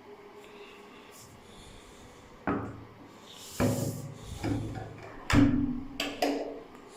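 A series of about five sudden knocks and scrapes of hard objects, starting about two and a half seconds in, the last two leaving a brief ringing tone.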